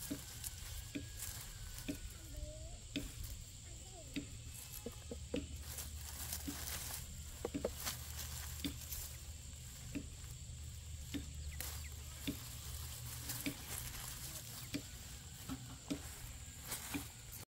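Rustling and crackling of watermelon vines and leaves being pulled apart by hand, with plastic mulch film crackling underneath, in a run of short irregular crackles.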